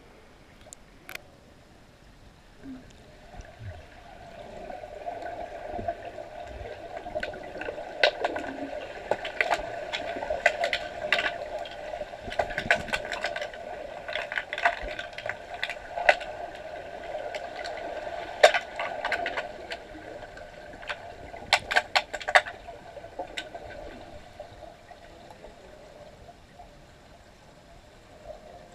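Underwater pool sound: a steady murmur of water with many sharp clacks, mostly in quick clusters through the middle, from underwater hockey sticks and the puck striking each other and the tiled pool floor during play.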